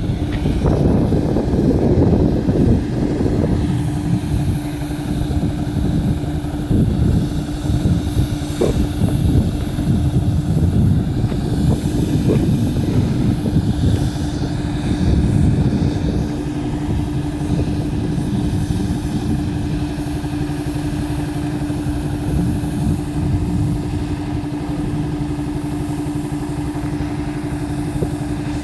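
Engine of a road-works machine running steadily, with a constant droning tone over a low rumble.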